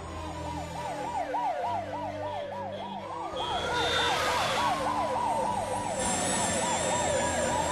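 Police car siren on a fast yelp, sweeping up and down about four times a second, with a slower rising and falling wail overlapping it. A rushing hiss swells briefly about four seconds in.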